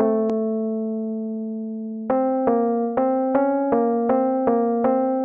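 Electronic piano-like keyboard tones. A chord rings and fades for about two seconds, then short notes repeat about three times a second.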